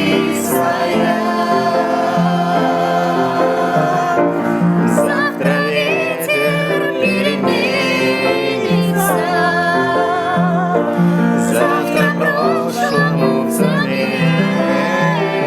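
Street piano playing a song, with singing voices carrying the melody over it.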